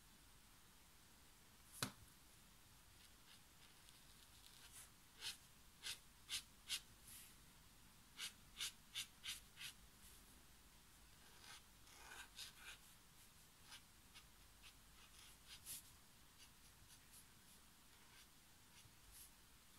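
Brush-tip Ecoline watercolour marker stroking across heavy Arches 300 g watercolour paper: short, soft scratchy strokes in quick runs of four or five, about two to three a second, with pauses between. One sharp click about two seconds in.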